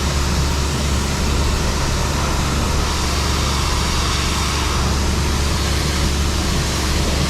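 Heavy machinery running steadily: a constant low hum under a loud even hiss, with no change in speed.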